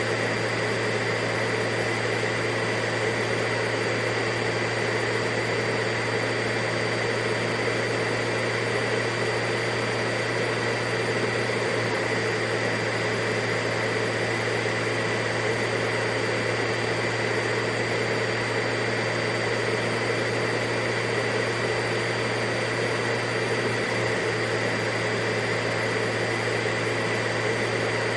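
Vacuum cleaner running steadily: an unchanging rush of air and motor drone with a low hum and a thin high whistle over it.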